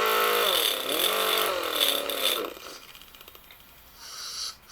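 Small hand grinder running against a chainsaw chain's drive links, grinding off the raised edges left when the chain jumped off the sprocket. Its pitch sags and recovers for about two and a half seconds. A shorter high-pitched burst of grinding comes near the end.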